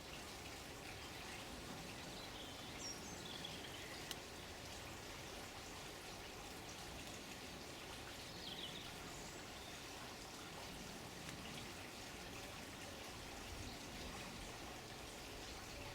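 Steady running water with a few short bird chirps, about three seconds in and again near the middle, and a single sharp click about four seconds in.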